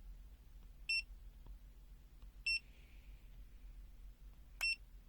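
Three short, high electronic beeps from a digital multimeter, sounding about a second, two and a half seconds and four and a half seconds in. These are the meter's key-press beeps as its touch buttons are pressed to switch it into manual range mode.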